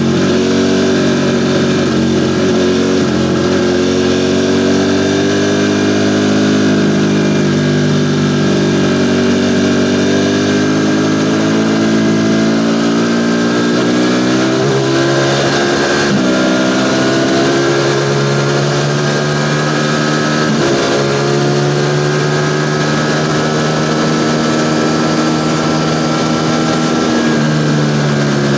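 Ducati Panigale V4 motorcycle's V4 engine running while riding, its pitch rising and falling with the throttle and dipping briefly a few times along the way.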